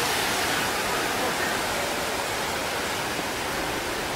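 Tsunami floodwater rushing across the ground among palm trees, a steady rushing noise.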